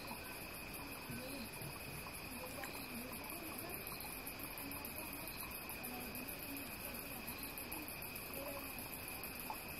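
Night-time chorus of crickets, several steady high-pitched trills at different pitches running together, the highest one pulsing rapidly.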